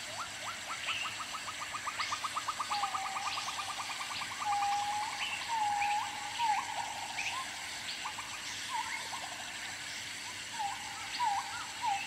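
Bald eagle calling: a fast chittering run of high, thin rising notes, about ten a second, for the first few seconds, then slower, drawn-out whistled notes that each end with an upward flick, about one a second.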